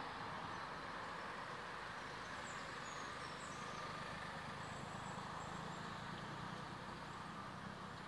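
Steady rumble of distant road traffic, with a few faint high chirps around the middle.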